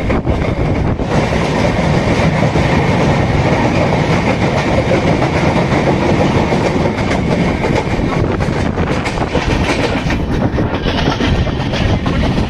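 Passenger train running along the track: a steady rumble with the wheels clattering over the rails.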